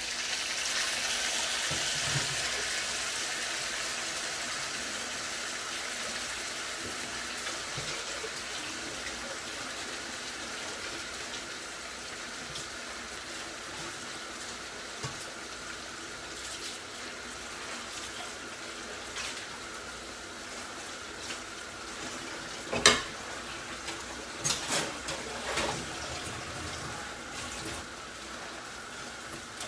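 Sardines sizzling in a cast-iron skillet alongside a pot of water at the boil, a steady hiss that slowly eases. A sharp knock about two-thirds of the way through, followed by a few lighter clacks.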